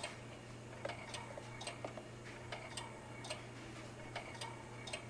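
Faint mechanical ticking, about two short clicks a second and not quite evenly spaced, over a steady low hum.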